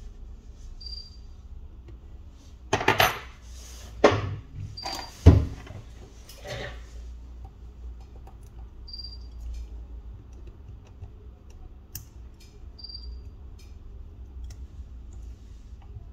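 Handling noise of metal tweezers against the phone's metal frame: a few louder clatters and knocks in the first seven seconds, then light ticks and taps.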